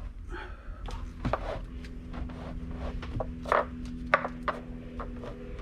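Prismatic LiFePO4 battery cells being pushed and slid together on a wooden workbench: scattered knocks and scrapes, the loudest about three and a half and four seconds in. A steady low hum comes in about a second in.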